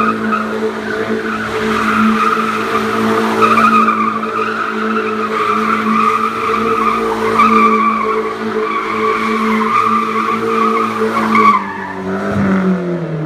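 Hyundai Genesis Coupe 2.0T's turbocharged four-cylinder, through a turboback exhaust with quad tips, held at steady revs while its rear tyres squeal continuously in a smoky donut drift. Near the end the tyre squeal stops and the revs drop away.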